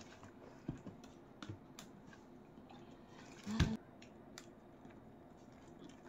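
Light handling sounds of a silicone mold being flexed and peeled off a cured epoxy resin tray: scattered small clicks, and one louder thump about three and a half seconds in.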